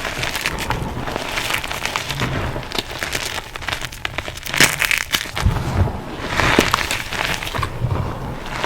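Reformed gym chalk and cornstarch crunchies being crushed in a bowl. They give dense crackling crunches in repeated squeezes about every two seconds, with a sharper crack about halfway through.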